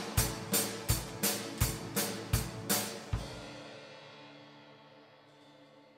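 Live band ending a song: the drum kit strikes a steady beat of about three hits a second over ringing guitar and keyboard chords. The hits stop about three seconds in and the last chord fades away.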